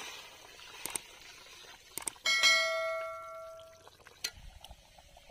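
A spatula strikes the rim of a metal wok: a few light clinks, then one ringing clang about two seconds in that dies away over a second or so. The simmering curry bubbles faintly near the end.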